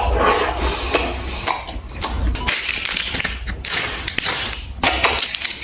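Close-miked eating and food-handling sounds: a run of crisp, irregular crunches and taps.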